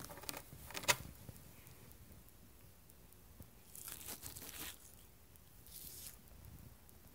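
A tabby cat moving about in a cardboard box right against the microphone: three short bursts of rustling and scraping, the first with a sharp click about a second in, the second around four seconds in, a shorter one near the end.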